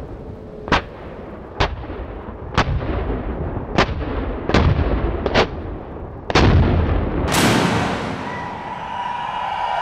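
A battery of muzzle-loading field cannons firing one after another: seven sharp reports about a second apart, then a closer, louder blast about seven seconds in whose rumble trails off.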